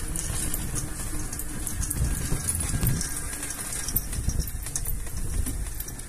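Wind and handling noise rumbling on a hand-held phone's microphone while walking, with scattered light clicks.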